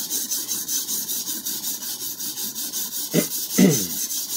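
Stainless steel Henckels santoku blade stroked rapidly back and forth on a coarse whetstone: an even, rhythmic scraping as the tip is worked to raise and flip the burr. Two short low sounds cut in about three seconds in, the second the loudest.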